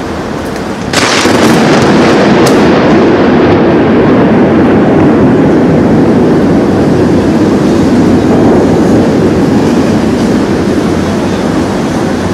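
Harsh noise texture from an experimental electronic track: a dense, loud wall of noise, heaviest in the low-middle, that bursts in suddenly about a second in over a quieter hiss and holds steady until it cuts off abruptly at the end.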